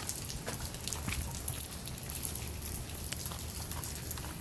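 Faint, steady outdoor hiss with small ticks scattered irregularly through it.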